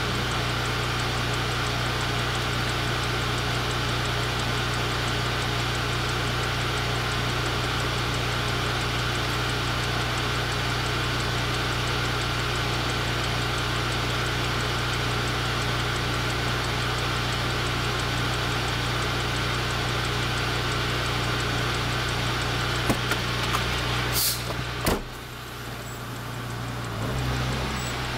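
Semi truck's diesel engine idling steadily, heard from inside the cab. Near the end come a few sharp clicks and a short burst of noise, the sound dips briefly, and then the engine note changes as the truck starts to move.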